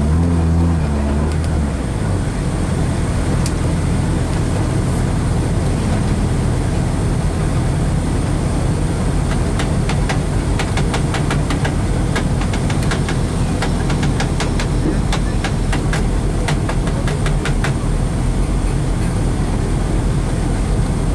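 Rally car engine idling, heard inside the cabin: a steady low rumble, its note shifting briefly about a second in. From about nine seconds to eighteen seconds, a scatter of sharp light clicks runs over it.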